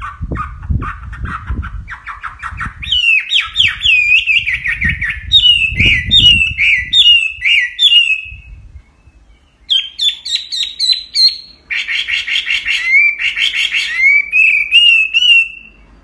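Chinese hwamei singing: quick runs of repeated notes, then loud clear whistled notes that sweep downward. The song breaks off for about a second midway, starts again, and stops right at the end, with some low thumps underneath in the first half.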